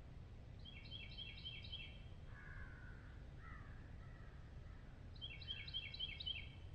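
A bird calling outdoors: two runs of about five quick repeated high notes, one near the start and one near the end, with a lower, rougher call in between. A steady low rumble runs underneath.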